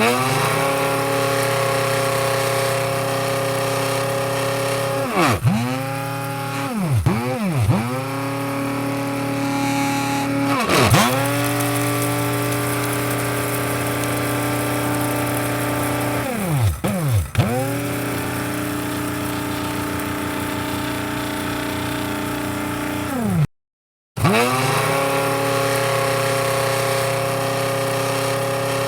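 Electric coffee grinder motor running with a steady whine. About seven times its pitch drops away and quickly climbs back, as when the switch is briefly released and pressed again. The sound cuts to dead silence for about half a second just after 23 seconds.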